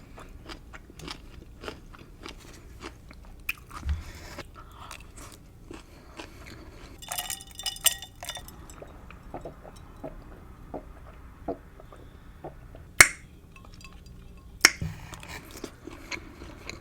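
Close-miked chewing and biting into a gyro, with wet smacks and light crunches in an irregular run. A denser crackly stretch comes about seven seconds in, and two sharp, loud clicks near the end.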